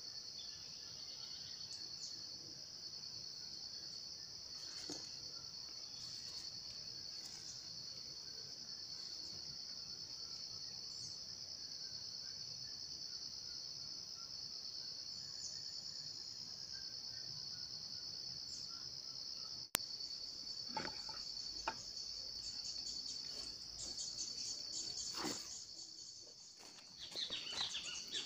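Insects trilling in a steady, high-pitched chorus. In the last several seconds come rustling and scattered knocks of steps along a leafy trail.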